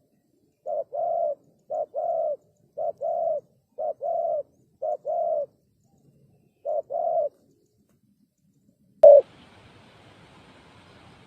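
Spotted dove cooing: six two-note phrases, each a short note followed by a longer one, roughly one a second, then a pause. About nine seconds in comes a sharp click with a clipped coo, followed by faint steady hiss.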